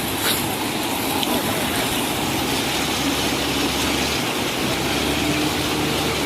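Steady rush of a fast-flowing mountain river, its current strong and heavy.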